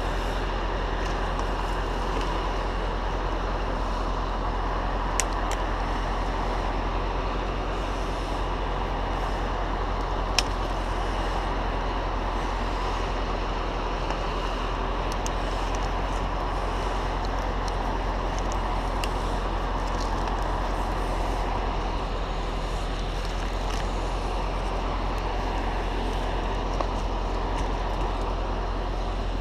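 Heavy diesel engine running steadily with a constant low rumble, with a few short sharp clicks or knocks along the way.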